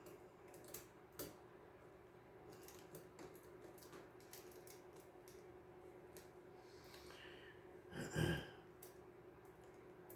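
Faint clicks and taps of small plastic and metal cassette-mechanism parts being handled and worked into place, with one louder short rustle or breath about eight seconds in, over a low steady hum.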